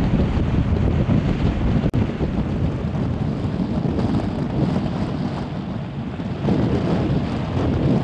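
Strong gusting wind buffeting the microphone: a heavy, unbroken low rush, with a momentary drop-out about two seconds in.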